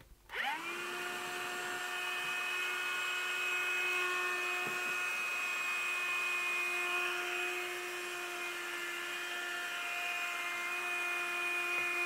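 CLEANmaxx cordless cyclone handheld vacuum cleaner switched on: its motor spins up with a rising whine about half a second in. It then runs steadily with a high whine and rushing air, vacuuming a car's carpet floor mat.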